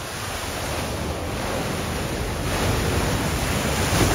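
A Mini Countryman ploughing through deep flood water, its wheels and bow wave sending water spraying and rushing. The splashing grows steadily louder as the car approaches and is loudest near the end.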